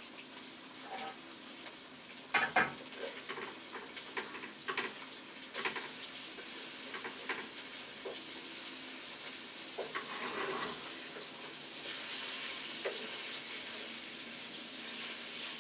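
Chicken pieces frying in vegetable oil in a frying pan, sizzling steadily while metal tongs click and scrape against the pan as the pieces are turned over. A sharp clatter about two and a half seconds in is the loudest sound, and the sizzle grows louder from about twelve seconds in.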